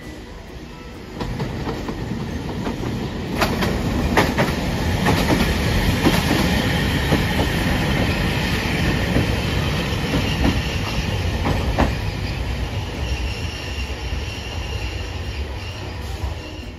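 Hiroden streetcar passing close by, its wheels clacking sharply over rail joints and points and giving a steady high-pitched squeal. It grows louder about a second in and fades near the end.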